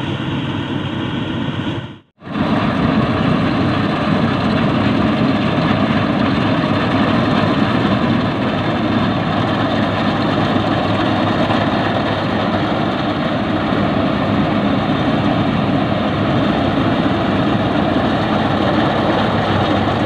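Yanmar YH850 rice combine harvester running as it cuts and threshes standing rice: its diesel engine and threshing gear make a steady drone. The sound drops out for a moment about two seconds in, then carries on a little louder.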